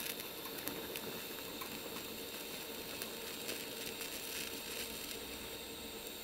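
Lift-arc DC TIG welding arc on thin sheet steel: a steady, quiet hiss with a faint steady tone under it, as a small-diameter filler rod is fed in.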